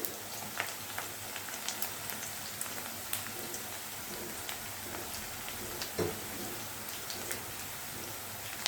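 Onions and garlic paste sizzling in hot oil in a frying pan: a steady frying hiss with scattered pops, and a single knock about six seconds in.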